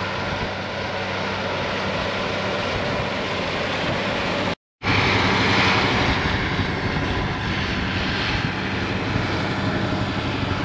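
Versatile 835 four-wheel-drive tractor's diesel engine running steadily under load as it pulls a chisel plow through stubble. The sound breaks off for a moment about halfway through, then carries on the same.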